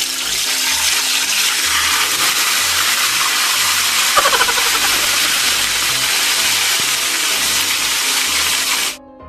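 Boiled, chilled pork mask deep-frying in a wok of hot vegetable oil: loud, steady sizzling and bubbling that cuts off suddenly near the end.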